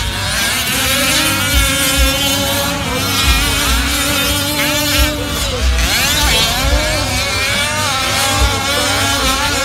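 Several 1/5-scale four-wheel-drive RC race trucks' small two-stroke engines running together, their pitch rising and falling as they rev up and ease off around the track.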